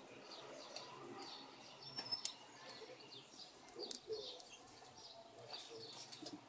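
Rosy-faced lovebird giving soft, quick chirps, with a few sharp clicks as it works a sunflower seed in its beak.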